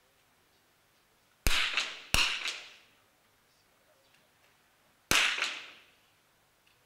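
Three .22 rimfire target rifle shots echoing in a large indoor hall. Two come about two-thirds of a second apart, and a third follows about three seconds later.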